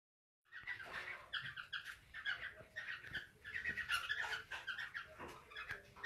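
Caged cockatiels giving a rapid run of short, scratchy chirps, several a second, starting about half a second in, the kind of calling heard during cockatiel mating.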